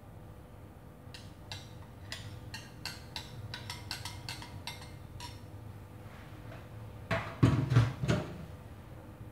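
Light clinks and taps of kitchenware, a metal ladle and plastic cup against small ceramic bowls, about three a second for a few seconds while the milk-gelatin mixture is shared out. Near the end comes a short cluster of louder knocks and thuds, the loudest part, as things are moved about on the counter.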